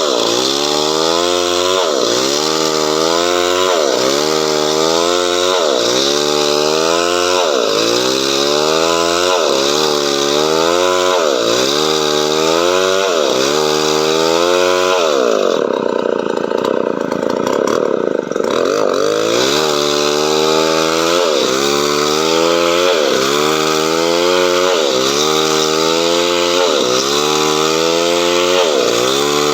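Chainsaw cutting coconut wood into boards. The engine pitch sweeps down and back up in a steady repeating cycle, a little over a second each time. About halfway through, the cycle breaks for a few seconds with one longer rise and fall in pitch, then resumes.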